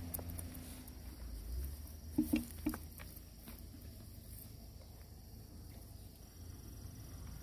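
Soft handling noise as a mesh fish trap is lifted off a plastic basin of water, with three short knocks close together a little over two seconds in.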